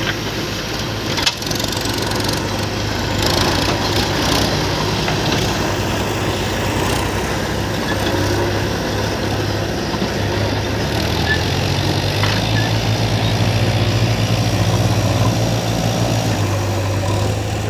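Diesel engine of earth-moving machinery running steadily, with a low drone that grows heavier about two-thirds of the way through as it takes load. Several sharp knocks and clatters come through, the loudest a little over a second in.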